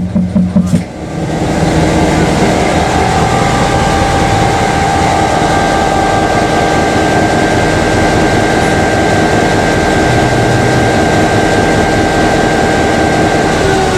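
EMD 567 two-stroke V16 diesel engine of an NSB Di3 Nohab/GM locomotive running, heard up close inside its engine compartment. A steady high whine sits over the engine's churn. The sound gets louder about a second and a half in, then holds steady.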